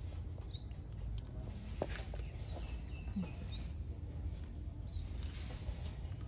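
Outdoor background noise with a low rumble, and two short high chirps from a bird about three seconds apart.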